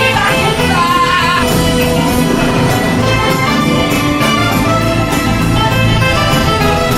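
Loud orchestral film score with steady percussion strikes.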